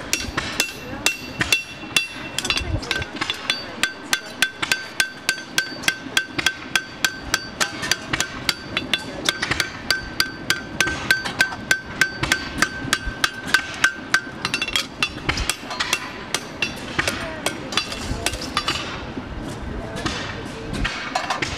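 Farrier's hand hammer striking hot steel on an anvil, forging an agricultural draft horseshoe. Steady blows come about three a second, each with a ringing anvil tone. After about fifteen seconds the blows grow sparser and uneven.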